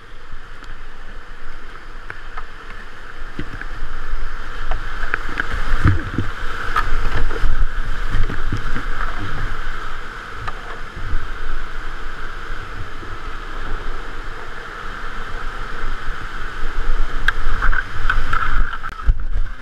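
Rushing whitewater around a kayak, heard from a GoPro mounted on the boat, with irregular low thumps and splashes as the hull drops through the rapids. It grows louder a few seconds in and again near the end.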